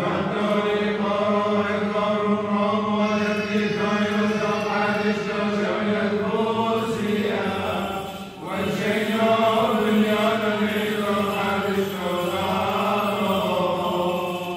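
A group of voices chanting Syriac Orthodox liturgical chant for the consecration of icons, with a steady low note held underneath. The chant breaks briefly about eight seconds in, then resumes.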